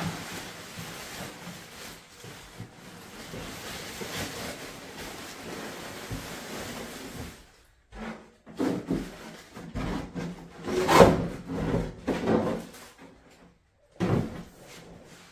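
Rustling of shredded-paper packing in a cardboard box, then louder irregular scraping and rubbing as large molded model-jet fuselage pieces are lifted out and slid against the box, loudest about eleven seconds in.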